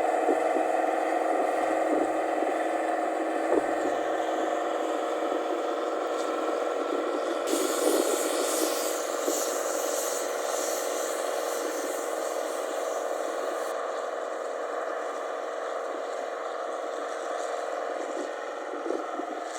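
Rice combine harvester's engine and exhaust running steadily with a constant hum and a few knocks, slowly getting quieter.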